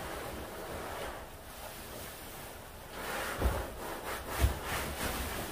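Cardboard TV box scraping and rubbing as it is tipped and the set is worked out of it. The scraping gets louder after about three seconds, with two thumps about a second apart.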